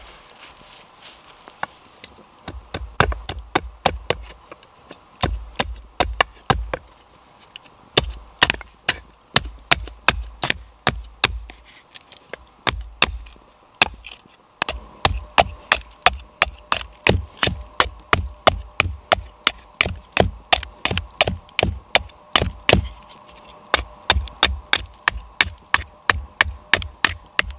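Small hand hatchet chopping a wooden spatula blank against a log chopping block: sharp wooden knocks, spaced out at first, then in quick runs of about two to three a second with short pauses between.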